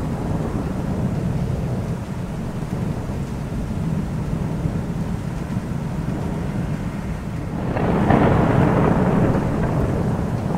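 Thunderstorm: steady rain under a low rumble of thunder. About three-quarters of the way through, a louder thunder peal swells in and slowly dies away.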